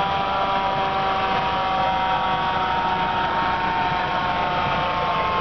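Fire truck siren holding several steady tones that slowly sink in pitch, over the low rumble of running vehicle engines.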